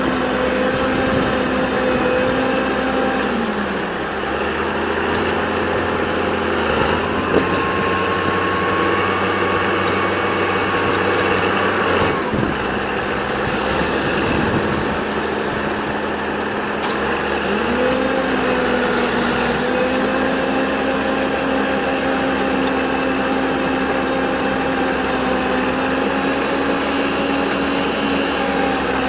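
A machine's engine running steadily, its pitch dropping a couple of times and then rising again as the engine speed changes, with a few knocks partway through.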